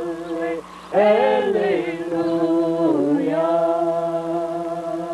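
A Seminole song sung by voices in long, held, chant-like notes, swelling louder about a second in and holding one long note through the second half.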